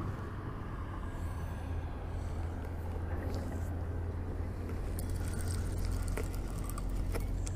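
Steady low rumble of road traffic on a highway bridge, with a few faint clicks from a spinning reel being cranked against a hooked catfish.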